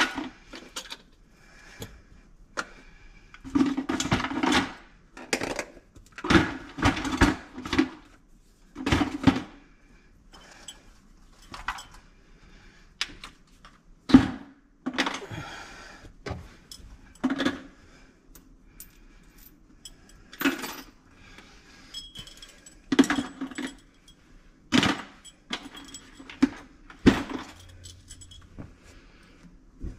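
Irregular metallic clinks, clanks and knocks of tools and disposal parts being handled during a garbage disposal installation, coming singly and in short clusters a second or two apart.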